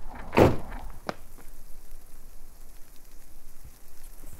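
A car door being shut with a thud about half a second in, followed by a sharp click about half a second later, then only low, steady background noise.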